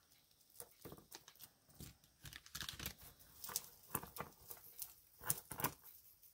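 Faint, irregular clicks and rustles of costume jewelry being handled, with small metal pieces knocking lightly together.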